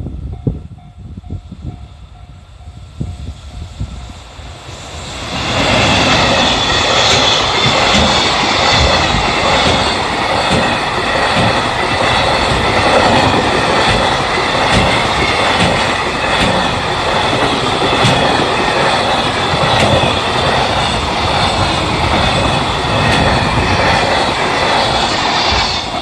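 A level-crossing warning bell dings in a repeating pattern. About five seconds in, an EF210 electric locomotive and its long container freight train arrive and run past close by, a loud, steady noise of wheels clattering over the rails that continues as the wagons go by.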